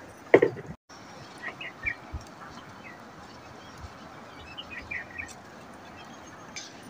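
Small birds chirping in short bursts, twice, over steady outdoor background noise, with one brief loud burst of sound just after the start.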